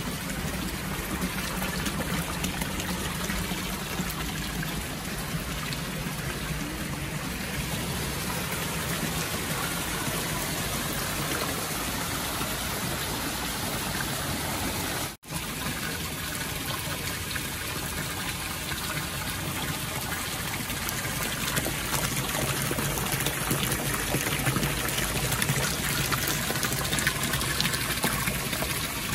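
Steady splashing of water from fountain jets and stone spouts pouring into a pond, with a momentary break about halfway through.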